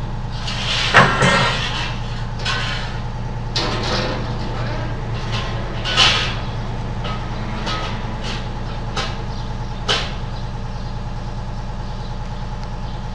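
Construction machinery's engine running steadily, with irregular metallic clanks and knocks as a triangular steel frame is fitted into place. The loudest clanks come about a second in and near six seconds.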